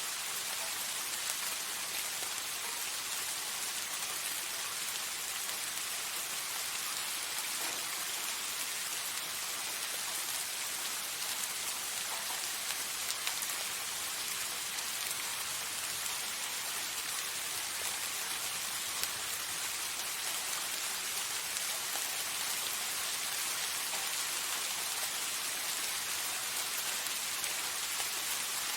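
Soft, steady rain falling, a continuous even hiss of many fine drops with no thunder.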